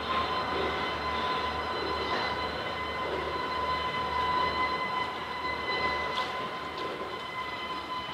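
Norfolk Southern freight train moving slowly while switching, a steady high whine over its rumble. Low, rhythmic bumping sounds along with it and fades out about six seconds in.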